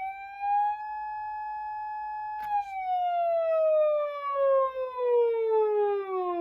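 PATLITE SAP-500BWK-GV siren amplifier sounding an electronic siren wail. The tone climbs to a high pitch and holds steady, a click comes about two and a half seconds in, and then the pitch slowly falls.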